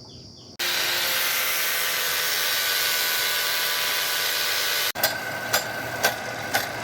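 A power tool working a piece of ebony wood, a loud steady whirring that starts half a second in and cuts off abruptly after about four seconds. Then comes a different machine sound with a regular knock about twice a second.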